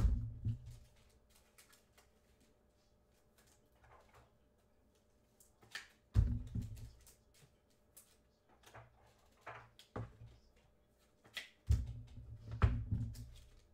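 Trading-card packs and boxes being handled on a table: scattered taps, clicks and rustles, with heavier bumps at the start, about six seconds in, and a cluster near the end.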